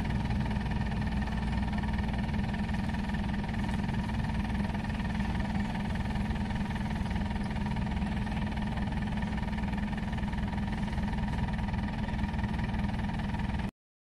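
Maxxi Bimo 102L rice combine harvester's diesel engine and threshing machinery running steadily under load while cutting rice. The sound drops out for a moment near the end.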